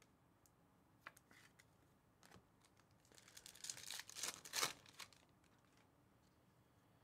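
Foil wrapper of a Topps Chrome trading-card pack torn open by hand, with about two seconds of crinkling and tearing. It is loudest towards the end and is preceded by a few faint clicks.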